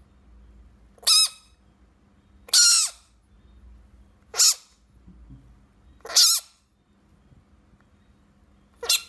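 A frog giving five short, high-pitched squawking calls, each a fraction of a second long and one to two and a half seconds apart, made as a finger prods it.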